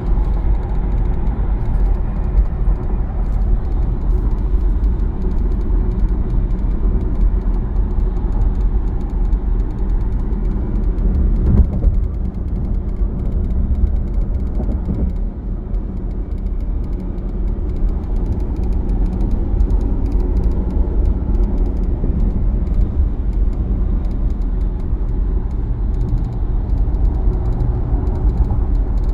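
A Mercedes-Benz GLC (X254) on the move: a steady low rumble of road and running noise, with a faint, irregular rattle of light clicks and a stronger knock about twelve seconds in.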